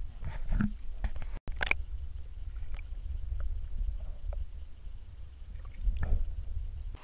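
Muffled water movement heard underwater: a steady low rumble with scattered faint clicks and knocks, and a louder wash about six seconds in, as a hand releases a speckled trout.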